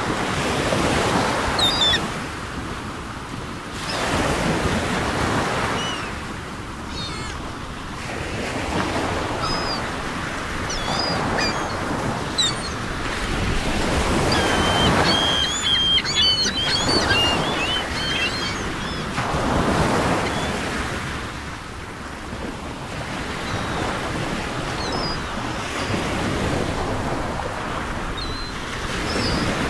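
Ocean waves washing onto a shore, surging and receding every few seconds, with short high bird chirps here and there, most of them around the middle.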